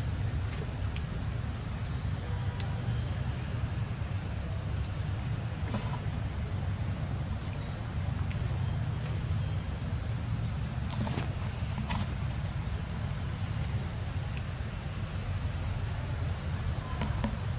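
A steady, high-pitched insect drone, the unbroken song of cicadas or crickets, over a low rumble, with a few faint clicks.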